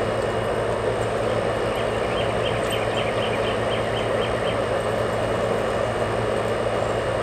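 Steady mechanical drone with a low hum. About two seconds in comes a short run of about ten quick high chirps, roughly four a second.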